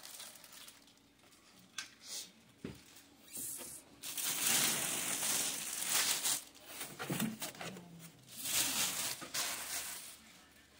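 Clear plastic wrapping crinkling and rustling as a plastic-wrapped cooker lid and bag are handled and pulled out of a cardboard box, with a few light knocks in the first seconds; the crinkling is loudest in a long stretch around the middle and again briefly near the end.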